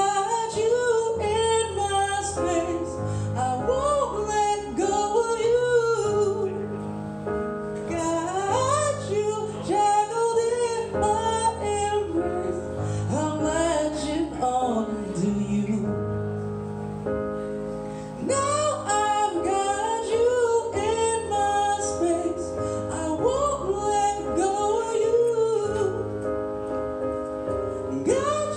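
A man singing high, sliding vocal runs with no clear words over a steady chordal accompaniment, the voice pausing briefly a few times.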